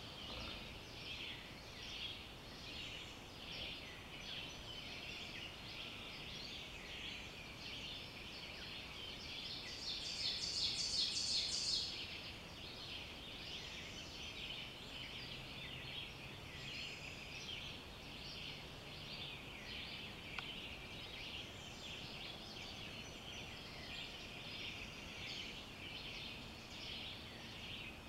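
Woodland dawn chorus of many songbirds singing over one another, with one louder, rapid trill lasting about two seconds near the middle.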